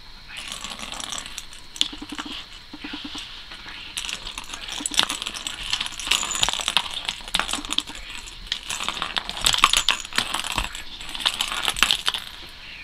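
A plastic ball rattling around inside a plastic circle-track cat toy as a cat bats at it, with a dense run of clicks and knocks from the ball and the cat's paws hitting the plastic track.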